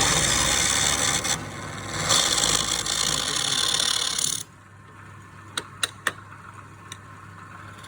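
A hollowing tool scraping and cutting inside a wooden pot spinning on a lathe, a loud rough hiss in two passes with a short let-up between. The cutting stops about four and a half seconds in, leaving the lathe's low hum and a few light clicks.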